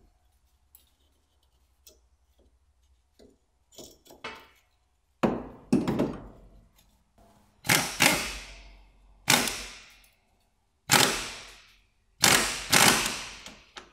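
Impact wrench driving in the brake caliper bracket bolts in a series of short bursts, about eight, starting about five seconds in. Some bursts come in quick pairs. Before that there are only faint clicks of metal parts being fitted by hand.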